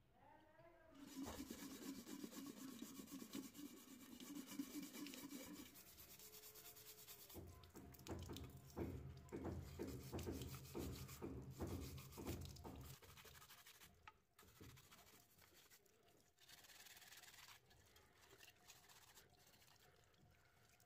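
Faint hand scrubbing of a wet brass bed-warmer pan with a scrubber: a steady rubbing at first, then a run of strokes about two a second. Fainter water runs near the end.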